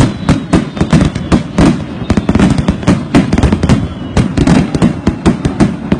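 Aerial fireworks bursting in rapid succession, several overlapping bangs a second with no let-up.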